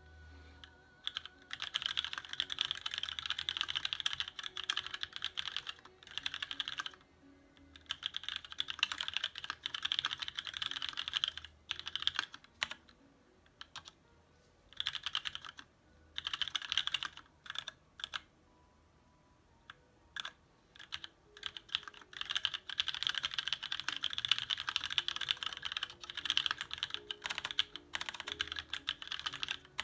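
Typing on a TX1800 custom mechanical keyboard with an aluminium case and plate, lubed Cherry MX Black switches and thick ABS doubleshot Cherry-profile keycaps. Fast runs of keystrokes come in bursts, with quiet gaps of a few seconds near the middle and a long unbroken run in the last third. Music plays faintly underneath.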